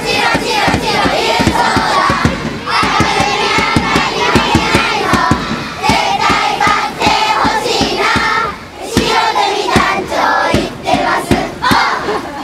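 A large group of schoolchildren chanting and singing a team cheer together in unison, with frequent sharp beats of a drum struck in time.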